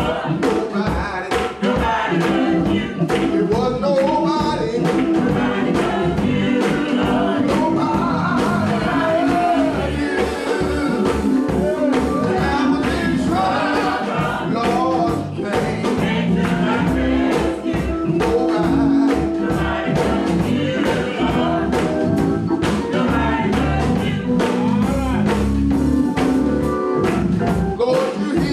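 Gospel choir singing with instrumental accompaniment, over a steady drum beat.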